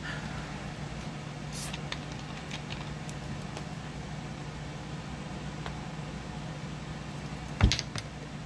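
A person drinking from a large plastic soda bottle over a steady low hum, with a few faint clicks and one sharp knock near the end.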